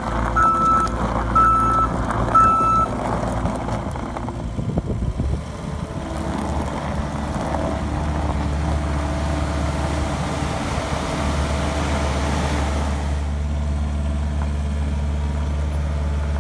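Case SR160 skid steer's engine running as the machine moves, its backup alarm giving three beeps about a second apart near the start. The engine then runs on steadily, a little louder from about eleven seconds in.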